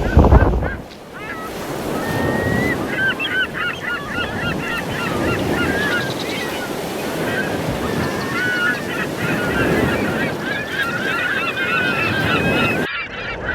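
A flock of birds calling, many short repeated calls overlapping, over the steady noise of surf and wind on the microphone. A gust of wind hits the microphone at the start, and the sound cuts off abruptly near the end.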